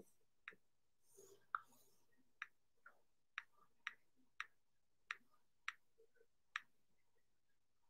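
Faint fingertip taps typing on an iPad Pro's glass on-screen keyboard: about ten sharp, short clicks, unevenly spaced, roughly one every half second.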